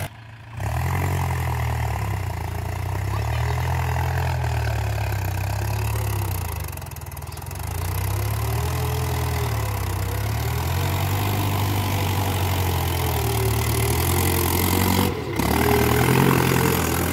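Mahindra 575 DI XP Plus tractor's four-cylinder diesel engine running under load as it pulls a spring-tine cultivator through the soil, its pitch slowly rising and falling. The sound breaks off briefly about half a second in and again near the end.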